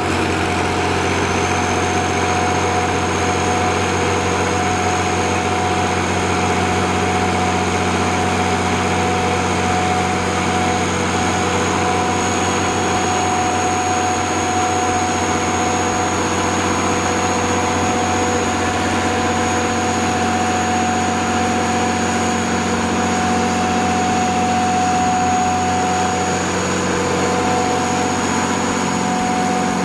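Cummins 6BT 5.9 L inline-six turbo diesel of an 80 kW Kohler generator set running steadily at constant speed just after starting, with a thin high whine coming in about a second in.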